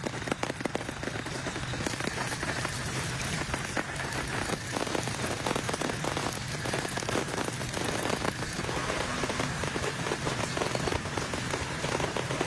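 Steady rain falling, a dense patter of many small drop strikes.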